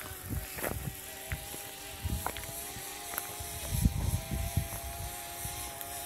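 DJI Spark quadcopter's propellers humming overhead as a steady pitched drone while it descends, with uneven low thumps and a few clicks on the microphone.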